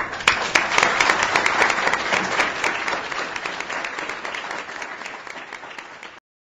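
Audience applauding: many hands clapping together, starting suddenly, loudest over the first couple of seconds and slowly fading, then cut off abruptly near the end.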